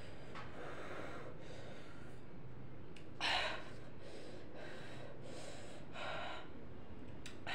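A person breathing hard and fast through the mouth, a steady run of heavy breaths with one louder gasp about three seconds in. This is panting against the mouth-burn of the extremely hot Jolo chip he has eaten.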